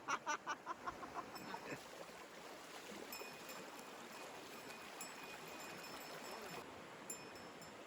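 Steady rush of stream water, with a voice trailing off in the first second or two.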